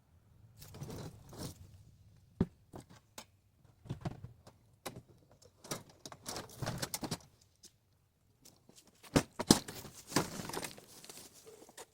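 Irregular handling noises: scattered knocks, clicks and rustling, loudest in two sharp knocks about nine seconds in.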